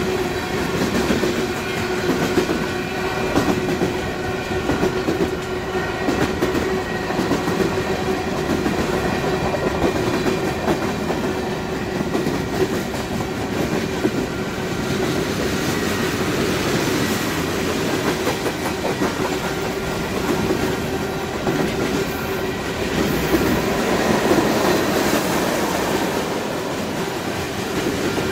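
Union Pacific mixed freight train rolling past at speed: hopper, box and tank cars go by with a steady rumble of steel wheels on the rails, clicking over the rail joints, and a steady hum running underneath.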